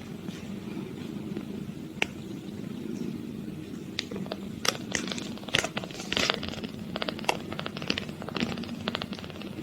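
Eight-day-old kitten purring in a low steady rumble, with scratchy clicks and crackles joining in about four seconds in.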